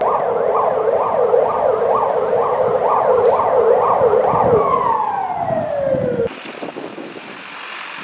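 Siren on yelp, its tone sweeping up and down about twice a second. About five seconds in it winds down in one long falling glide, then cuts off abruptly, giving way to a steady hiss.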